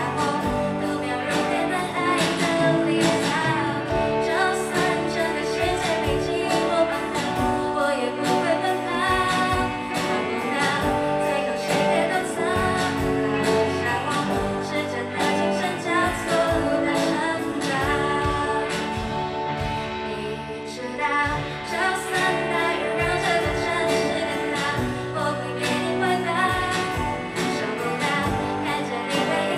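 Live rock band: a young woman singing into a microphone over electric guitar and a drum kit.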